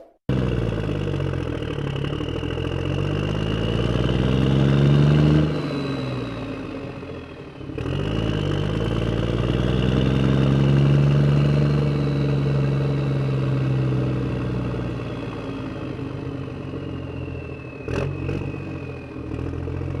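A vehicle engine revving: its pitch climbs for about five seconds and breaks off, then rises again and slowly falls away, with a high whine running above it. There is a short knock near the end.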